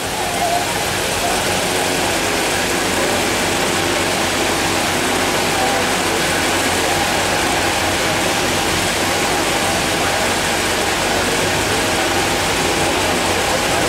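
Evaporative air coolers and pedestal fans running with a steady rushing noise, under an indistinct murmur of crowd voices.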